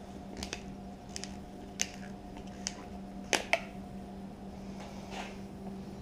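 Scattered small clicks and taps of parts being handled at a motorcycle's front brake master cylinder while its reservoir is opened for topping up with brake fluid, the two loudest about three and a half seconds in. A steady low hum runs underneath.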